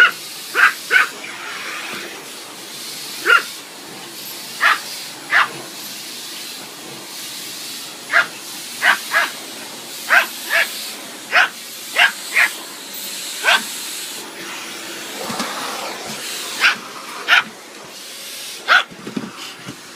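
Pomeranian barking in short, sharp yaps, about eighteen in irregular ones and twos, over the steady hiss of a running vacuum cleaner.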